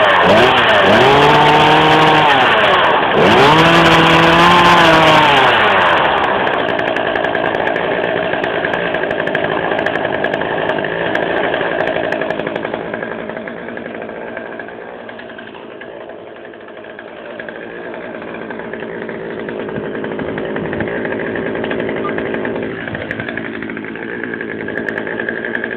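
Poulan Wild Thing chainsaw's two-stroke engine, just cold-started, revved up twice in quick blips in the first few seconds, then settling into a steady idle.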